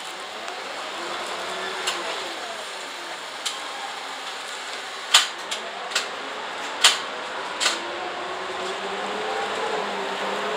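Cabin noise inside an Isuzu city bus turning and pulling away: the engine and drivetrain run with a faint whine that rises toward the end as the bus speeds up. Several sharp knocks come between about five and eight seconds in.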